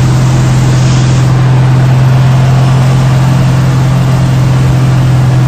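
Car driving at a steady highway speed, heard from inside the cabin: a loud, unchanging engine drone over road and wind noise.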